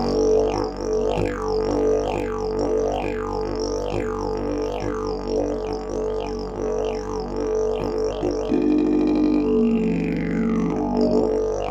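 Fibreglass triple-slide didgeridoo played with a steady drone, its tone swept by a rhythmic pattern of falling 'wah'-like changes about twice a second. About eight and a half seconds in, a second, higher tone joins the drone and steps down in pitch over about two seconds.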